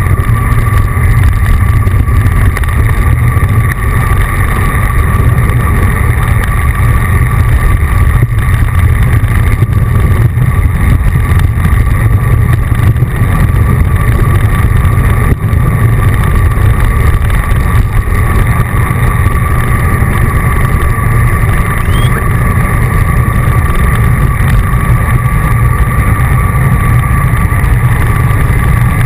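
Wind buffeting the microphone of a bicycle-mounted action camera while riding: a loud, steady low rumble, with a faint steady whine above it.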